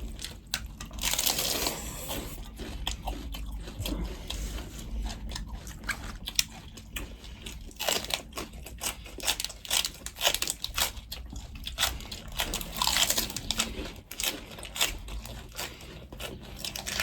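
A person chewing food in a mukbang, with crunchy bites and many short mouth clicks throughout.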